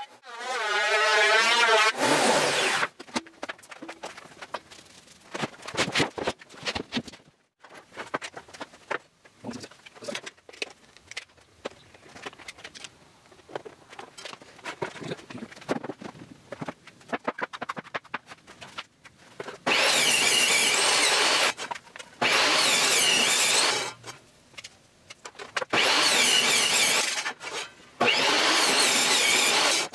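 A benchtop thickness planer's motor winding down, its pitch falling, then scattered clicks and knocks of hand tools and clamps being handled. Near the end a table saw runs in four loud bursts of about two seconds each, each starting and stopping abruptly.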